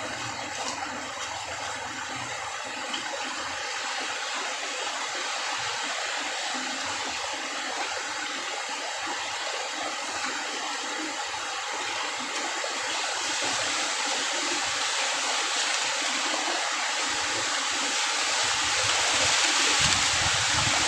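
Steady rush of running water, even and unbroken, slowly growing louder toward the end.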